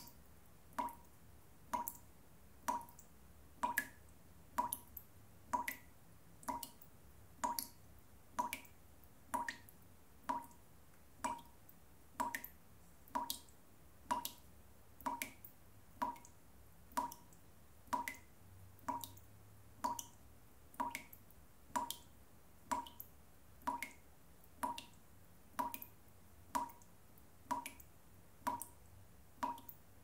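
Tap dripping steadily: single drops falling at an even pace, a little more than one a second, each a short, sharp drip with a brief ringing tone.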